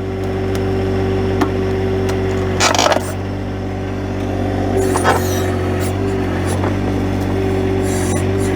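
John Deere 1025R compact tractor's three-cylinder diesel engine running steadily as the backhoe pulls on a stump, getting a little louder as the tug starts. There is a short hissing burst about three seconds in, and the engine note wavers slightly from about five seconds in.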